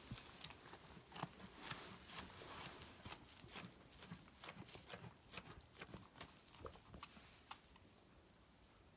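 Goats moving about in a pen: faint, irregular hoof taps and knocks with rustling of the bedding, thinning out near the end.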